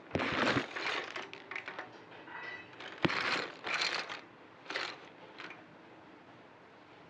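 Plastic toys clattering and rattling in a plastic mesh basket as a toddler grabs at it and tips it, in several short noisy bursts with one sharp knock about three seconds in.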